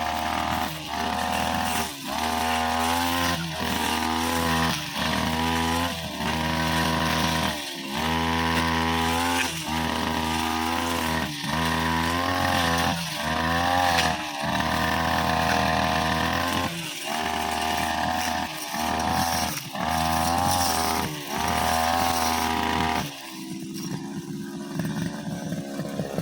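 Brushcutter engine at high revs, its note dipping and recovering in bursts about a second long as the blade bites into grass and the throttle is eased and opened again. Near the end it drops to a lower, quieter run.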